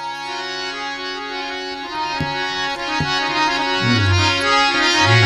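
Harmonium holding sustained chords in an instrumental interlude of a Gujarati devotional bhajan. Light tabla strokes come in about two and three seconds in, and low sliding bass-tabla strokes near the end.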